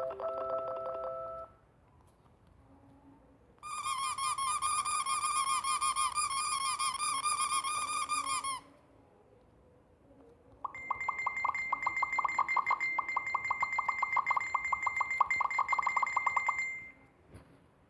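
Three separate bursts of rapidly repeating electronic tones. The first cuts off about a second and a half in. The second is a fast chirping run of falling notes from about four to nine seconds. The third, from about eleven to seventeen seconds, has a steady high tone held under the repeats.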